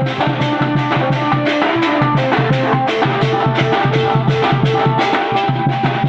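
Koraputia band party (Desia baja) playing: drums and a metal cymbal beat a fast, even rhythm of about four strokes a second, with a held melody line over them.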